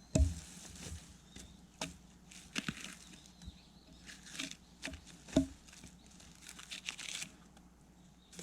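An axe knocking into a felled log and prying its bark off: several sharp knocks, the loudest right at the start and about five seconds in, with scraping and tearing of bark peeling away between them.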